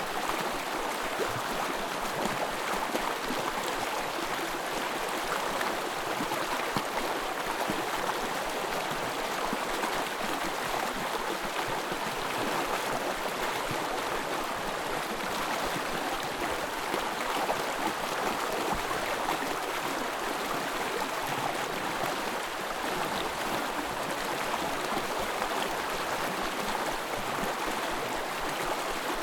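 Small forest stream flowing and gurgling over its bed, a steady babble of water.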